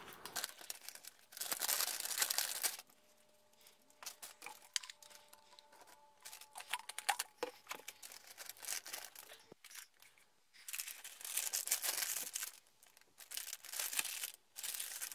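Plastic MRE flameless ration heater bag and food pouches being torn open, crinkled and handled, in irregular bursts of rustling and crackling with short quiet gaps.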